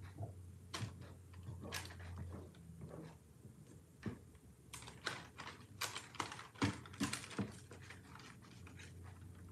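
Silicone spatula scraping and knocking against a stainless steel mixer bowl as stiff egg-white batter is pushed out into a loaf pan: a string of short scrapes and clicks, thickest in the second half.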